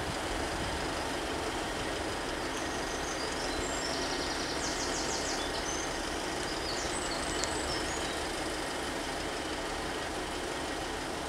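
Class 150 Sprinter diesel multiple unit standing at the platform with its underfloor Cummins diesel engines idling, a steady rumble and hum. A cluster of high chirps comes through in the middle.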